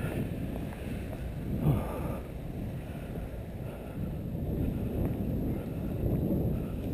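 Wind rumbling on the microphone of a camera carried by someone walking, with muffled footsteps on packed snow swelling about once a second.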